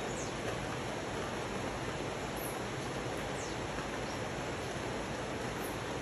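Steady rain falling on dense tropical forest, mixed with the rush of a rocky river, an even hiss. A few faint high chirps sound above it.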